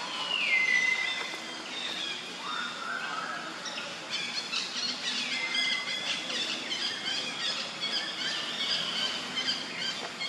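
A group of common hill mynas calling. A loud whistle near the start slides down and then holds, and a lower rising note follows. A second down-sliding whistle comes about halfway through, with rapid high chattering notes through the second half.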